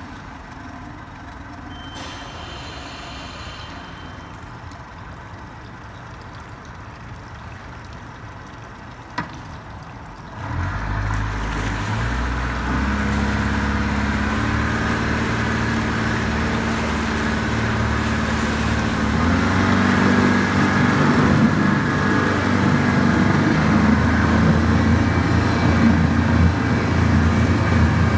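Yamaha four-stroke outboard engine idling quietly, then, after a click about nine seconds in, put in gear and throttled up: its running sound jumps up and grows steadily louder as the propeller churns the water.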